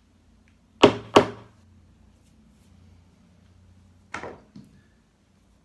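A hammer knocks the handle of a large slotted screwdriver seated in the slot of a painted-over hinge screw. The blows are meant to bite the blade in and loosen the screw. There are two sharp knocks close together about a second in, then another knock followed by a lighter one about four seconds in.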